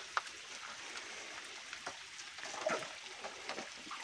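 Faint trickling, dripping water against a steady hiss, with a few small scattered ticks.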